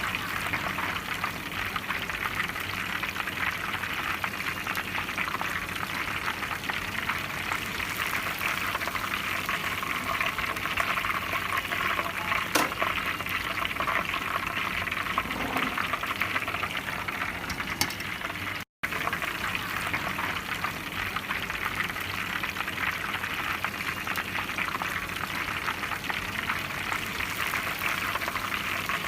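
Fish frying in hot oil: a steady, dense sizzle and crackle, cutting out for a moment about two-thirds of the way through.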